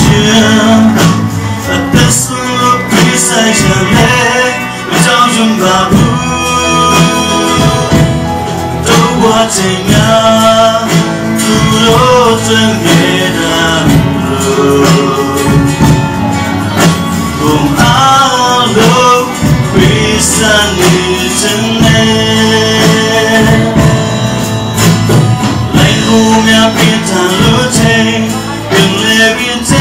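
Live worship band: a man singing a melody into a microphone, backed by electric bass and acoustic guitar.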